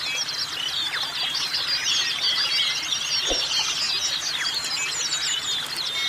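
Many small songbirds chirping and twittering at once: a dense, high-pitched chorus of short overlapping calls.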